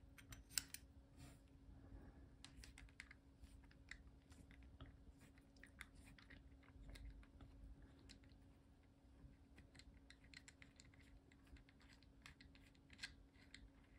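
Faint, scattered small clicks and taps of metal parts as a cut-open Solex R40 brass disc detainer padlock is handled and its disc core is worked out of the body.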